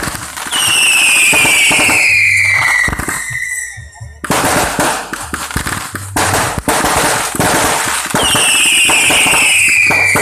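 Firecrackers and fireworks going off in a dense rattle of sharp cracks and bangs, with two long whistles falling in pitch, one near the start and one near the end, from whistling fireworks.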